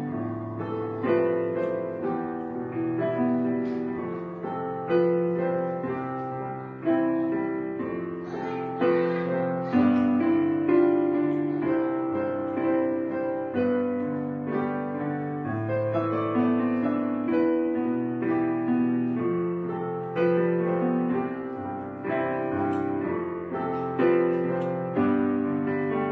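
Background piano music, notes and chords struck about once a second and left to fade.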